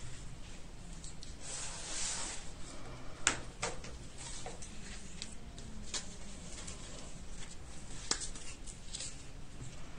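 Paper and card being handled on a craft table: a brief rustle about two seconds in, then scattered light clicks and taps, the sharpest just after three seconds.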